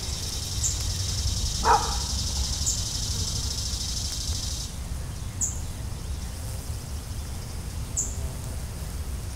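Summer outdoor ambience. A steady high insect buzz stops abruptly about halfway through, a bird gives a short high chirp every two to three seconds, and one brief, louder call sounds about two seconds in, over a constant low rumble.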